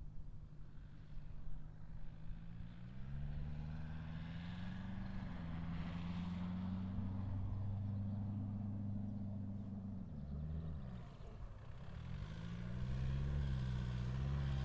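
An off-road SUV's engine pulling through soft sand. The revs climb about three seconds in and hold, drop off briefly around ten seconds, then climb again near the end.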